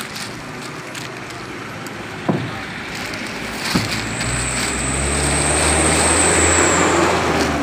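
A motor vehicle running close by, its engine rumble and a thin high whine swelling a few seconds in and easing off near the end. Earlier, a few single knocks as heavy cement sacks are set down on the stack.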